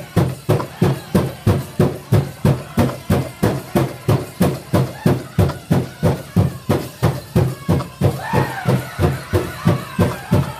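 Powwow drum struck in a fast, even beat, about three strikes a second, with a drum group's voices singing over it, rising clearer near the end.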